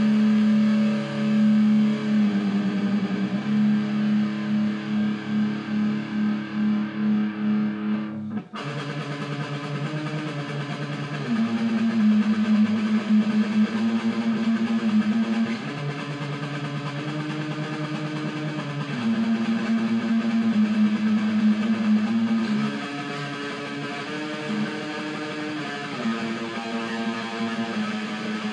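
Electric guitar played solo: held chords that change every three or four seconds, pulsing rhythmically over the first eight seconds, with a brief break about eight seconds in.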